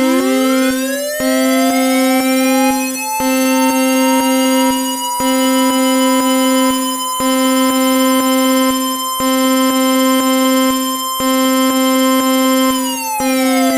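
Synthesized Emergency Alert System attention tones: a low tone pulsing on and off about every two seconds under a steady higher tone, with a siren-like tone that rises over the first few seconds, holds, and slides back down near the end.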